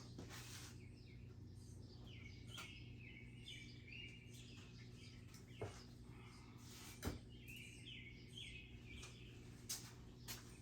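Faint birds chirping in two short spells, over a low steady hum, with a few soft clicks.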